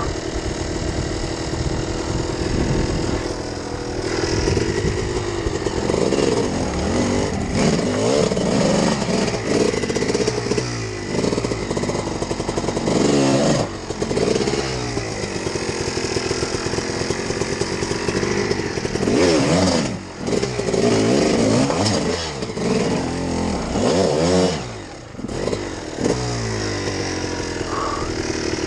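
Off-road motorcycle engine revved up and down over and over as the bike climbs a loose rocky gully, with a few brief drops where the throttle is shut.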